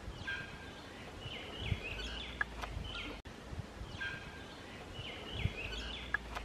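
Birds chirping and whistling in short downward-sweeping calls, with a few soft low thumps. The same few seconds repeat, so this is a short looped recording of birdsong.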